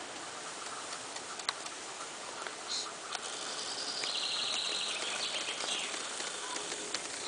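A small songbird sings a rapid, high trill from about three seconds in, over a steady outdoor hiss, with a few faint clicks.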